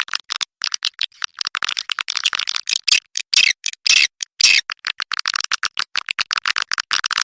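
Recorded swiftlet calls, a lure sound for swiftlet houses: fast chattering clicks and chirps, many a second, with all the lower pitches cut away.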